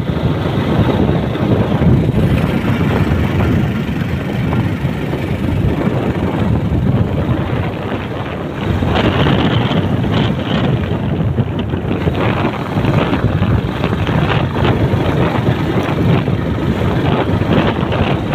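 Riding on a motorbike: steady wind buffeting the microphone, with the engine and road noise running underneath.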